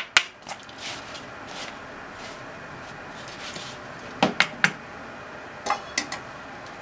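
Wooden chopsticks tapping and scraping against a plastic mixing bowl while tossing scallop mantles in potato starch: a couple of sharp clicks at the start, a quick run of three about four seconds in, and two more near the end.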